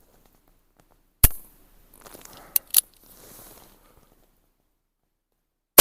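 Cimarron .45 Long Colt single-action revolver: a sharp snap of the hammer falling on a round that fails to fire, typical of a light primer strike, then two quick clicks of the hammer being cocked again. At the very end the round goes off with a loud shot that rings out and slowly dies away.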